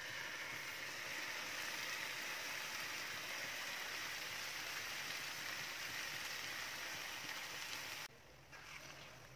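Steady sizzling of food frying in a hot pan, cutting off suddenly about eight seconds in.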